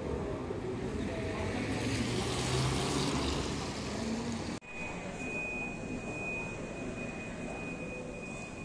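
Open-air background noise with a low rumble that swells and fades over a few seconds. It cuts off abruptly about halfway through, and a quieter background follows, with a steady high-pitched tone for a few seconds.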